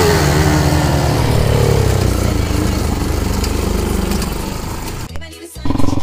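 Quad bike (ATV) engine running and revving, its pitch rising and falling. About five seconds in the sound dies away and briefly cuts out, then engine noise comes back loud near the end.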